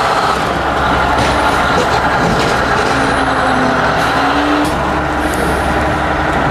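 A motor running steadily and loudly, with many steady tones over a low hum; a faint tone rises slightly about three to five seconds in.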